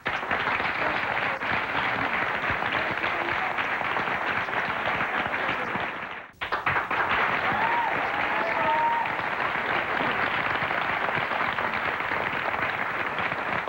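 Studio audience applauding steadily, a large crowd of hands clapping. The sound cuts out briefly a little over six seconds in, then the applause carries on.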